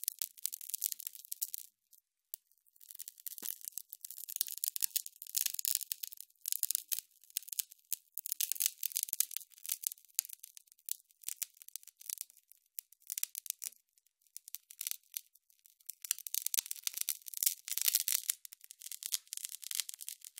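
Electric sizzle sound effect: a high, dense crackle of sparks that comes in irregular surges, dropping out briefly about two seconds in and again near fourteen seconds.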